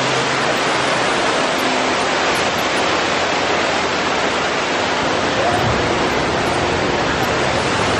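Water cascading down the rockwork of a man-made volcano, a steady loud rush with no breaks.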